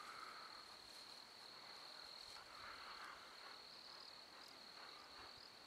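Near silence, with a faint, steady, high-pitched insect trill over quiet outdoor air.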